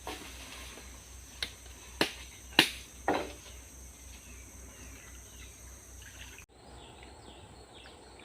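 Outdoor insect chorus droning steadily at a high pitch. Four sharp knocks come between about one and a half and three seconds in, the third the loudest, and a few faint chirps follow near the end.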